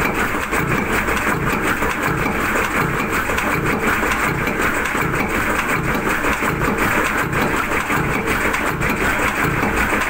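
Old tug boat diesel engine with open valve gear, running steadily with a regular beat.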